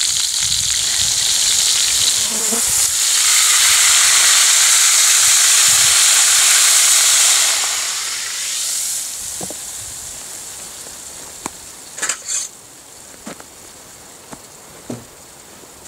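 Wild hog bacon sizzling in hot grease in a skillet over campfire coals. The sizzle grows louder about three seconds in, then dies away over a couple of seconds as the pan is lifted off the heat. A few light clicks follow.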